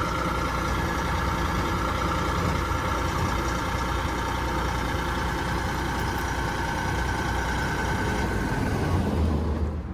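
Vermeer SC48TX stump grinder's engine running steadily, with a high steady whine over it. The whine fades out and the engine sound drops away in the last second.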